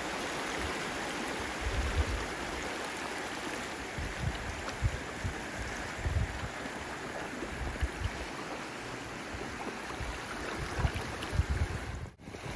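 Shallow river rapids: a steady rush of water running over rocks, briefly cutting out near the end.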